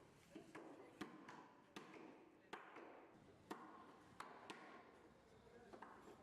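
Knife chopping fish on a cutting board: a string of sharp knocks, spaced unevenly about a second apart.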